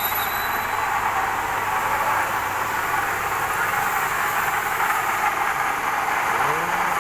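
Kiheung KMU-1.5 S milling machine running steadily while its cutter face-mills an aluminium block, an even, unbroken machining noise.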